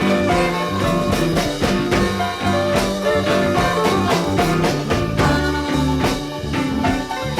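Blues band playing an instrumental passage with a steady beat and no vocals.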